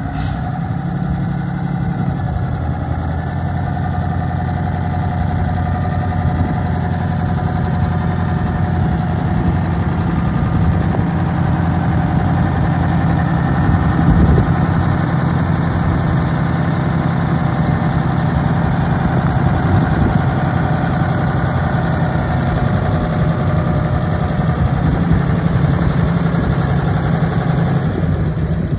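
1981 Ford 9000 grain truck's diesel engine idling steadily.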